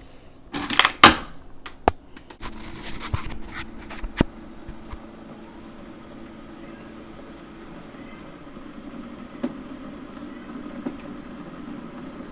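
A few loud knocks and clicks, then a steady car hum heard from inside the cabin.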